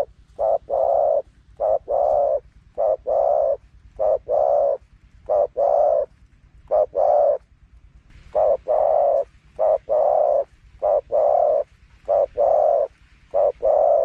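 Spotted dove cooing: a short coo followed by a longer one, the pair repeated about once a second, with a brief pause about halfway through.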